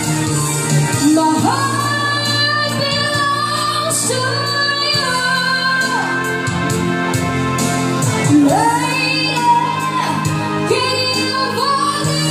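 A woman singing a ballad live into a microphone through a sound system, over instrumental backing. She holds several long, high notes with vibrato.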